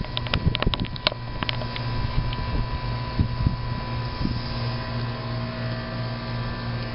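Central air conditioner's outdoor condensing unit running, a steady low hum of compressor and fan, with a few sharp clicks in the first second or so.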